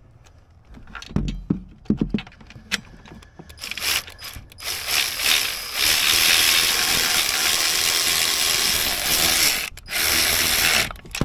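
Ratchet wrench working a bolt: a few separate knocks, then a long run of fast clicking that breaks off briefly and starts again near the end.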